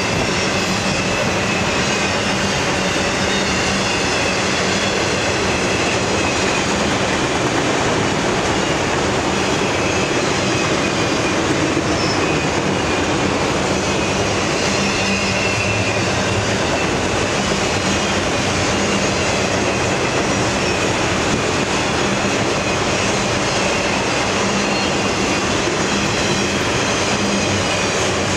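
Autorack freight cars rolling past at steady speed: a continuous rumble of steel wheels on rail. A thin high squeal from the wheels wavers in and out over it.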